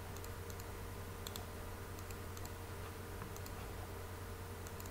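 Sparse computer mouse clicks, a few short sharp clicks spaced irregularly, over a steady low hum.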